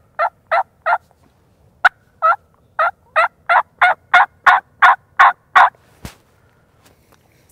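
Hen turkey yelps made by a hunter on a turkey call: a few notes, a brief pause, then a steady run of about ten yelps, roughly three a second. He calls with his head turned away to throw the sound like a hen walking off. A single sharp click comes in the pause, about two seconds in.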